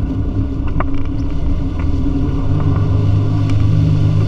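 Wake boat's engine running under power to pull a wake surfer up out of the water, its low steady note growing stronger about two and a half seconds in, with water rushing behind the hull.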